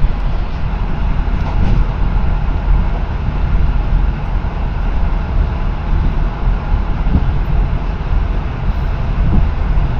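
Steady low rumble of a passenger train running at speed, heard from inside the carriage: wheels on the rails and the car's running noise.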